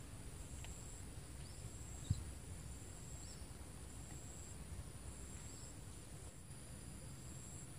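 Insects trilling steadily at a high pitch, one trill pulsing on and off about once a second, with a few faint short chirps. A single sharp knock about two seconds in is the loudest sound.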